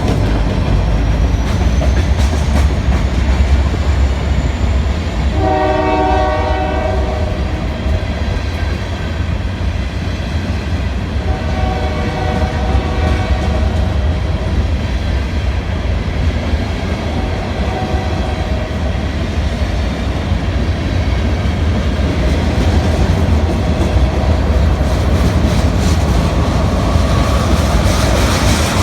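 Union Pacific diesel locomotive #1488 pulling a freight train past, with a heavy steady rumble and wheels clacking on the rails. Its air horn sounds a loud blast of several notes about five seconds in, then a weaker, longer blast around eleven seconds, and fainter ones later on.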